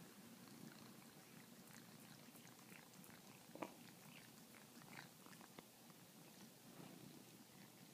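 A cat chewing and biting at fruit: faint, irregular wet mouth clicks, with a louder click about three and a half seconds in.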